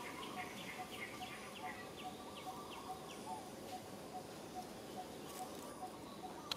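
Forest birds calling: a short low note repeated evenly about two and a half times a second, with a run of quick, high, falling chirps over the first few seconds.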